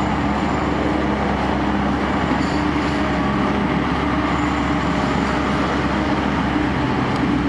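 Road roller's engine running steadily, a constant low rumble with a steady hum.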